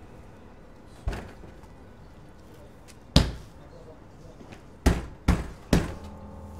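A series of dull thuds: one about a second in, a louder one about three seconds in, then three in quick succession near the end.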